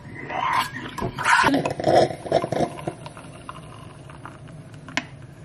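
A dog barking and growling during the first three seconds, then falling quiet.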